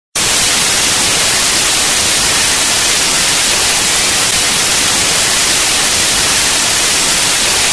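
Television static hiss: a steady, loud white-noise rush with no pitch, brighter at the top, that cuts in abruptly at the start.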